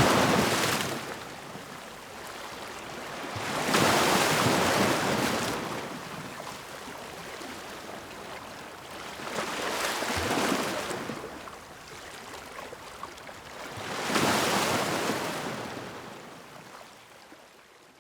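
Ocean waves breaking on a shore, four crashes swelling up and washing back, the first at the very start, then about 4, 10 and 14 seconds in, fading out near the end.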